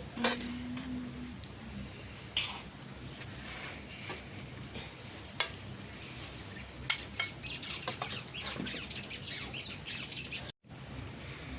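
Birds chirping, busiest in the last few seconds, over sharp clinks of dishes and cutlery now and then. The sound drops out for an instant near the end.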